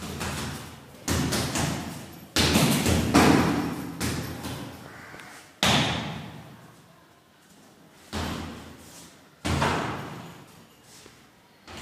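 Punches landing on a hanging heavy punching bag: a string of sudden thuds spaced irregularly, with several in quick succession around the middle. Each thud trails off over about a second.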